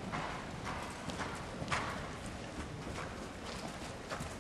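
Hoofbeats of a ridden horse striking the soft footing of an indoor arena, an uneven series of thuds with a few louder strikes.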